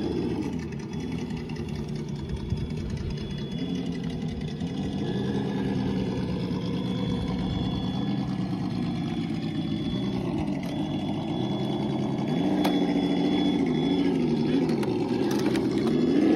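Simulated V8 engine sound from the electronic sound module of a 1/10-scale TRX-4 RC crawler, idling and rising and falling in pitch with the throttle as the truck crawls. It grows louder in the last few seconds and cuts off suddenly at the end.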